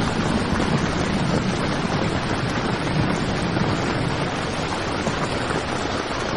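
Heavy rain falling steadily on a tent, a dense, even wash of drops with a low rumble underneath.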